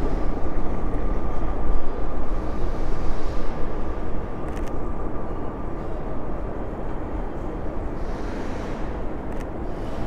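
Strong gusty wind buffeting an action camera's microphone: a low, rumbling noise, heavier in the first half and easing off toward the end.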